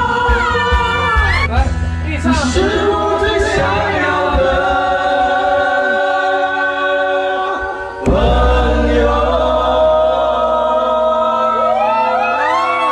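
Two men singing a Mandarin pop song loudly into karaoke microphones over a karaoke backing track, with long held notes. About eight seconds in the sound dips briefly and cuts straight back in.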